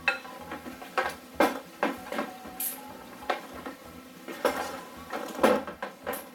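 Irregular clinks and knocks of containers and utensils against a bowl while ingredients are added to slime, about a dozen sharp taps with a short ring.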